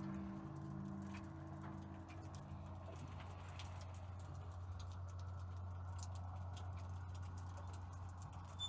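Steady low hum of the blade-sharpening jig's grinding-wheel motor, with scattered light clicks and taps.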